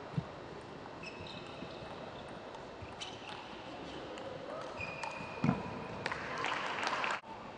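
Table tennis rally: the celluloid ball clicks off the bats and the table, with short rubber-sole squeaks on the court floor. Near the end, as the point finishes, crowd applause swells and then cuts off suddenly.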